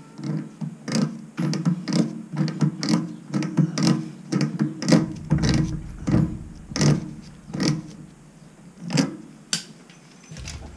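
Hand tool clicking against metal fittings at the base of a gas water heater: a series of sharp, uneven clicks, roughly two a second, that thin out near the end.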